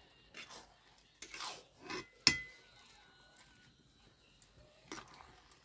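Long metal spatula scraping and knocking against a metal kadai while stirring thick carrot halwa as the added sugar melts in. There are a few irregular scrapes, and one sharp clink a little past two seconds in rings briefly.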